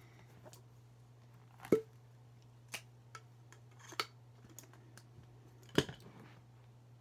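Felt-tip markers being handled at a table: a few sharp clicks and knocks, the loudest a little under two seconds in and another near six seconds, with fainter ticks between, over a low steady hum.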